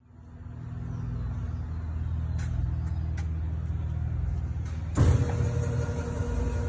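A low steady hum, then about five seconds in a Hobart mixer-grinder's electric motor is switched on at its mix-start button: a sudden knock and the motor runs up into a steady hum with a higher whine over it.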